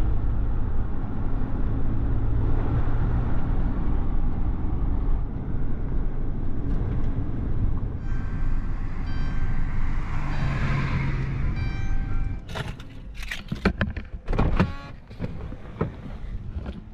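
Minivan driving with the driver's window open: steady engine and road rumble. About twelve seconds in the rumble drops away and a quick run of loud clicks and knocks follows from the van's door and controls.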